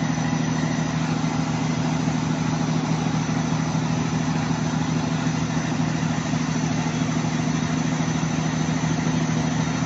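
Catamaran's engine running at a steady speed with an even low hum.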